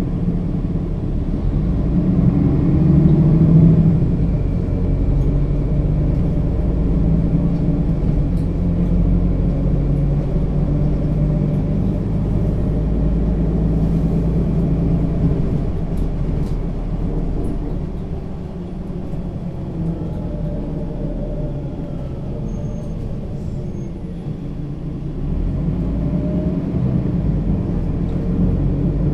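Mercedes-Benz Citaro G (O 530 G) articulated bus's diesel engine and Voith automatic gearbox while driving. The engine pulls louder a few seconds in, runs steadily, eases off about two-thirds through and picks up again near the end.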